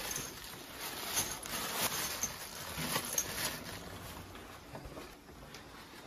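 Rustling and small clicks of objects being handled, with a plastic bag crinkling; busiest over the first four seconds, then quieter.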